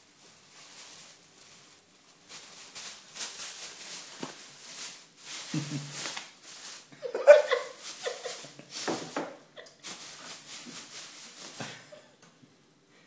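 Thin plastic bag crinkling and rustling in irregular bursts as a cat pushes its head into it and wrestles with it, going quiet about a second before the end. A person laughs about halfway through, the loudest moment.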